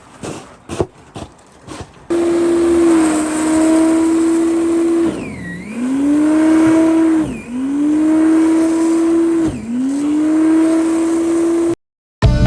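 A car's tyres spinning in snow under a revving engine: a loud steady whine whose pitch sags and climbs back three times as the throttle eases and comes on again. It follows a few light knocks and cuts off abruptly near the end.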